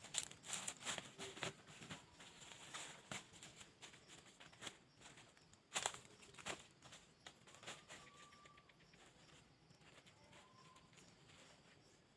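Irregular dry crackling and tapping, busiest in the first couple of seconds and again about six seconds in, with a few short, faint whistled bird calls in the second half.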